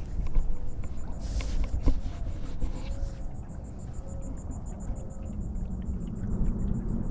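Insect chirping in a steady high-pitched train of about eight pulses a second, over a low rumble.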